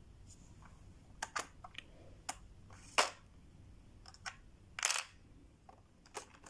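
Light clicks and taps of cosmetics being slotted back into a makeup kit's compartments and the case being handled, a few irregular clicks with the sharpest about three seconds in and a brief scraping rustle about five seconds in.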